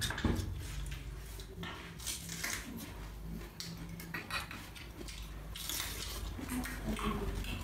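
Eating at a table: chopsticks clicking against porcelain rice bowls and plates, with chewing, as a series of small scattered clicks.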